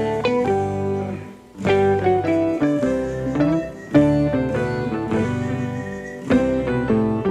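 Background instrumental music: a plucked-string melody of separate notes in short phrases, with brief pauses about a second and a half in and near the end.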